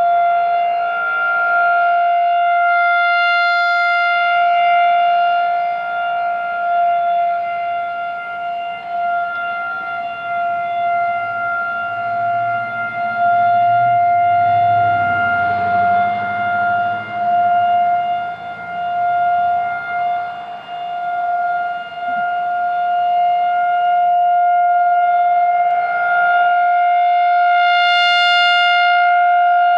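Industrial outdoor warning siren sounding a steady single-pitched wail during a test, its loudness swelling and fading as the rotating horn sweeps around; the sirens are believed to be Federal Signal 2001-130s.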